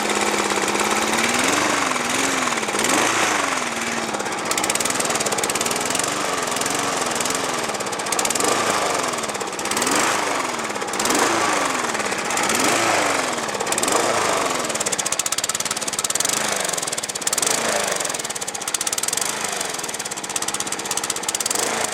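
Small lawnmower engine running on a tank of nitro fuel, its speed surging up and down over and over, roughly once a second.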